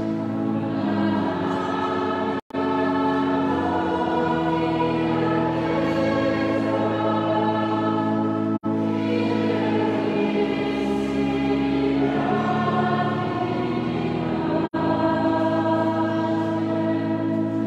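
Choir singing a slow liturgical hymn with long held notes. The sound cuts out for an instant three times.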